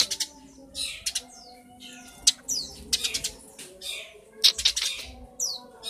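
Eurasian tree sparrow chirping repeatedly, sharp chirps and quick falling notes in irregular runs.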